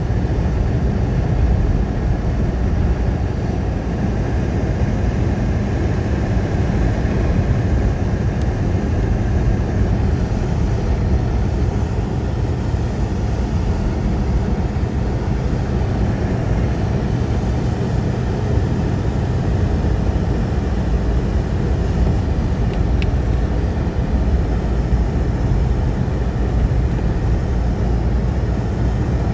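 Car driving along a snow-covered road, heard from inside the cabin: a steady low rumble of engine and tyres.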